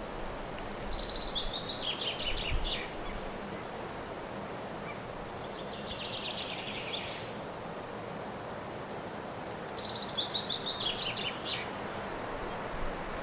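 A songbird singing in the open: a fast run of high notes falling in pitch, lasting about two and a half seconds, near the start and again about two-thirds through, with a shorter phrase between. A steady faint outdoor hiss lies underneath.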